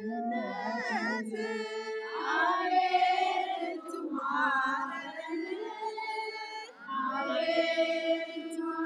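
Singing voices in a slow, chant-like melody with long held notes.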